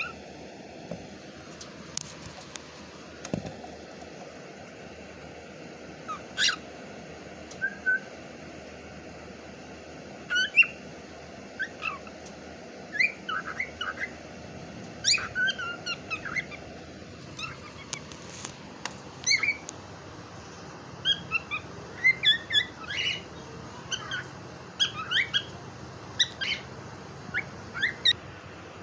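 Pet cockatiel chirping and whistling in short calls, a few scattered at first, then coming quickly one after another over the last several seconds, over a steady background hiss.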